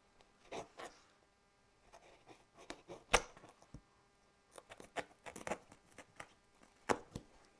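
Scattered rustles and light taps from handling the fabric-covered headliner board and folding its cut flaps, with a sharp tap about three seconds in and another near the end.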